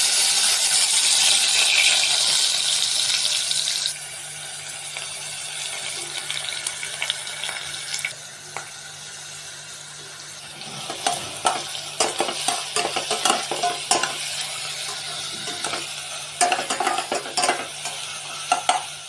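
Food frying in hot oil in a pan: a loud sizzle for the first four seconds, then a quieter steady sizzle. From about eleven seconds in, a spatula stirs and knocks against the pan again and again.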